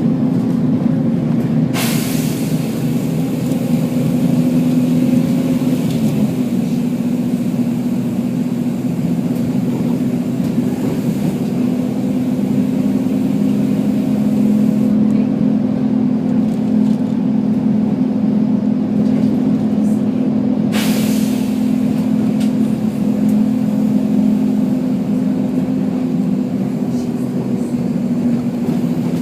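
Volvo B10BLE bus's six-cylinder diesel engine running steadily, with two short hisses of compressed air from its air system, one about two seconds in and one about twenty seconds in.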